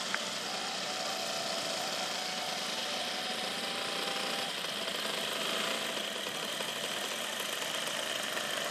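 Twin DLA 32 two-stroke petrol engines of a large-scale RC Transall C-160 model running steadily at low throttle while the model taxis.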